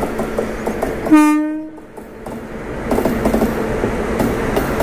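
A train horn sounds one short blast about a second in, a single steady pitch rich in overtones, over the rumble and clatter of the coach running on the track. The rumble dips briefly after the blast and comes back.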